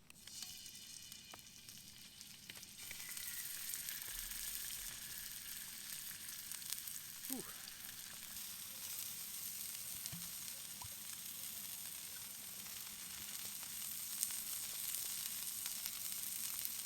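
Chicken pieces frying in hot olive oil in a large Muurikka steel griddle pan, a steady sizzle that starts suddenly as the meat goes in and grows louder a few seconds later, with a few small clicks.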